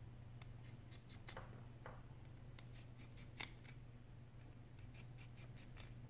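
Faint, small metallic clicks and ticks in a few short clusters as a precision screwdriver works the tiny screws of an iPhone 6 display's metal back plate, over a low steady hum.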